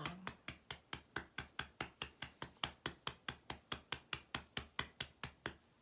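Fingertips tapping rapidly on the collarbone EFT point, an even train of light taps about five a second, stopping just before the end.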